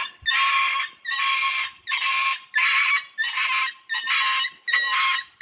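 Common brushtail possum screeching: about seven harsh, rasping calls in a steady run, each about half a second long. It is the defensive call of a possum bailed up by a terrier.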